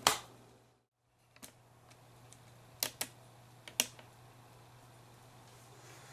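A few sharp, scattered clicks and knocks over a low steady hum, after the sound cuts out completely for a moment under a second in.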